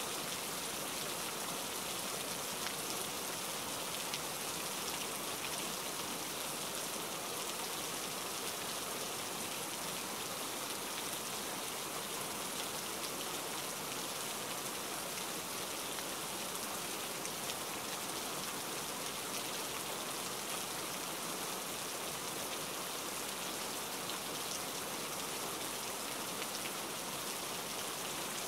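Steady rain falling, an even hiss made of many small drops, with no change in strength.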